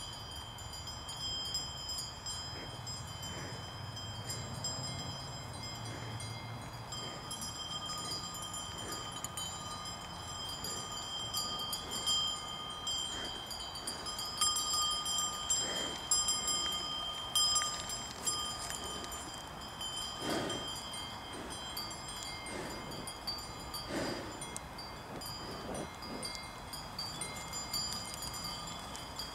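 Several cowbells on grazing cattle ringing and clanking in overlapping, irregular strokes as the cows move and feed, with louder clanks from a nearby bell about midway through.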